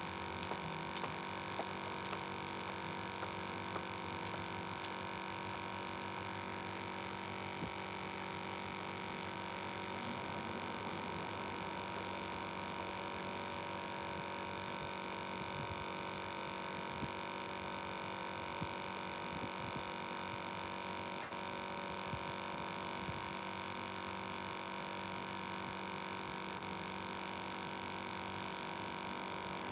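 A steady hum made of several fixed tones that never change, with a few faint, scattered ticks.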